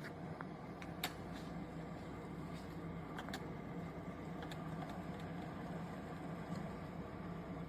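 Steady low mechanical hum with a few faint clicks, from the single-serve coffee maker running after the brew stream has stopped.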